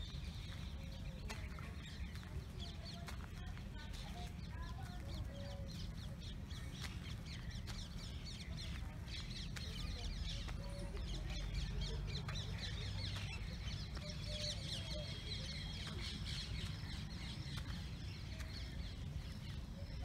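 Many small birds chirping, thickest through the middle, with short low calls now and then, over a steady low rumble.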